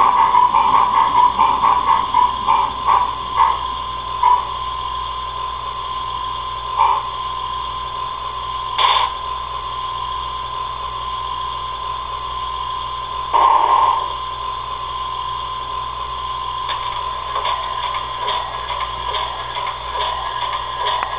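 Simulated steam-locomotive sound from a Tenshodo D51-498 model train's onboard sound system. Rhythmic exhaust chuffs slow and die away over the first few seconds over a steady hum. A few short separate bursts follow, the longest about half a second a little past halfway, and faint rapid chuffs come back near the end.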